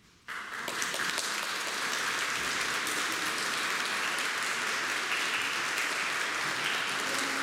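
Audience applause breaks out suddenly just after a moment of near silence and carries on steadily.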